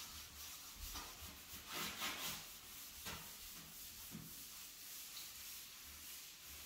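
Faint scrubbing strokes on the bottom edge of a glass shower enclosure, working at water stains, with a few louder strokes about two and three seconds in.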